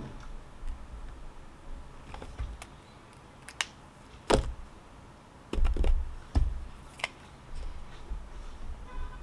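A scattering of sharp taps, clicks and knocks, a few seconds apart and loudest around the middle, over a low rumble.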